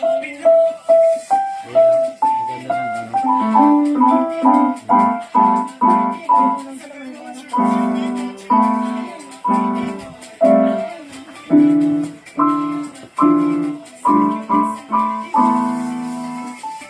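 Keyboard or piano music: a steady melody of separately struck notes over chords, each note dying away.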